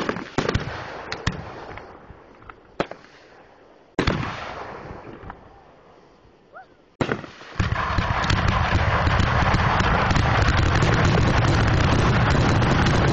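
Aerial fireworks shells bursting: separate booms with crackle and fading echoes, a large one about four seconds in. Past the halfway point it turns into a dense, continuous barrage of many shells bursting at once.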